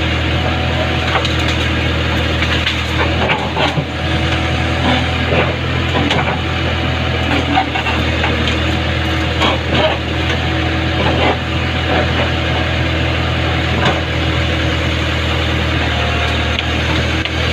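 JCB backhoe's diesel engine running steadily, with irregular cracks and snaps of wood as the machine breaks and pushes through a tree.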